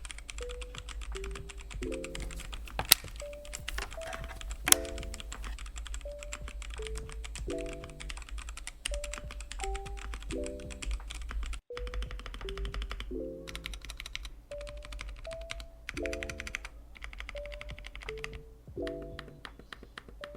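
Fast, continuous typing on a Gamen Titan Pro mechanical keyboard with red linear switches and PBT double-shot keycaps: a dense stream of key clacks, with two sharper, much louder strikes about 3 and 5 seconds in. A light background tune plays underneath.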